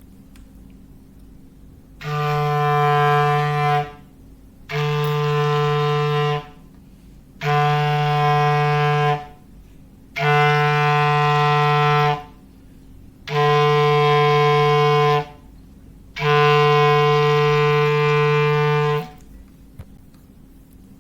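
A clarinet sounding a low foghorn imitation: six long blasts of about two seconds each, all on the same steady pitch, with short pauses between them.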